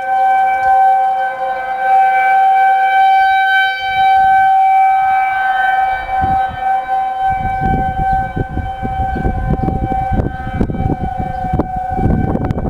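Outdoor tornado siren sounding a steady tone of several notes held together, set off for a monthly test rather than a warning. About seven seconds in, a low rumbling noise joins it.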